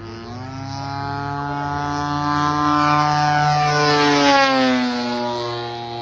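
Radio-control model plane's motor and propeller droning as it flies past: the pitch climbs at first, the sound grows louder to a peak about four seconds in, then the pitch drops as the plane passes and moves away.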